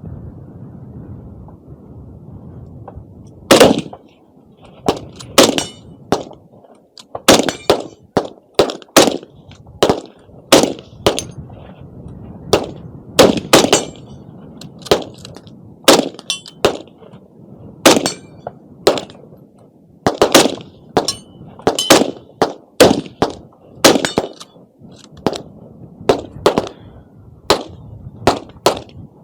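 A long string of gunshots fired in steady succession, roughly one or two a second, starting about three and a half seconds in. Several shots are followed by a short metallic clang, typical of steel targets being hit.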